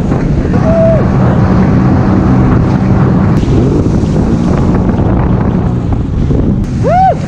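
Jet ski engine running at speed, with heavy wind buffeting on the microphone and the rush of water and spray. Two brief rising-and-falling high sounds come about a second in and near the end.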